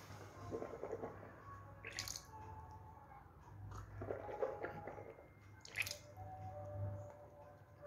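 A child rinsing the mouth after a tooth extraction, spitting water into a dental spittoon in two short spurts, about two seconds in and again near six seconds, over a low steady hum.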